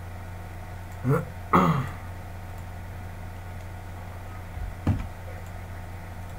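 A person clearing their throat, two short rasps about a second in, over a steady low hum; a dull thump follows a few seconds later.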